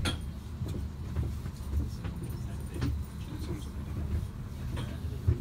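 Steady low engine rumble heard from inside a London bus's passenger cabin, with occasional knocks and rattles of the bodywork.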